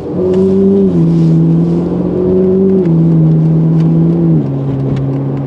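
Ferrari 458's V8 engine running steadily under way, heard from inside the cabin. Its note holds level and steps down in pitch about a second in, just before three seconds and again past four seconds, with a brief rise between, the pattern of gear changes.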